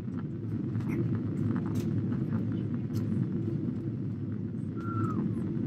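Steady low rumble of a jet airliner's cabin on approach, engine and airflow noise heard from a window seat over the wing.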